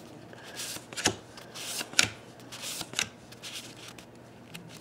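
2012 Topps Gypsy Queen baseball cards being flipped through one at a time from a freshly opened pack. Each card slides off the stack with a short papery flick, about one a second, with light rubbing of cardstock in between.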